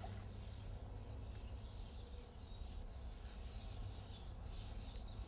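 Quiet outdoor ambience on open water: a steady low rumble with faint bird chirps scattered through it.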